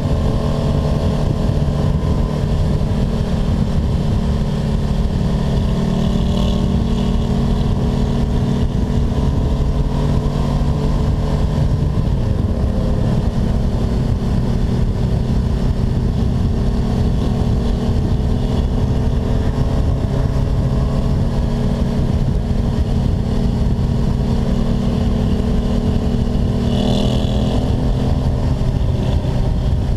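Honda motorcycle engine running steadily at cruising speed, with wind rush on the mounted camera. The engine note drops about twelve seconds in, and a short, brighter sound comes near the end.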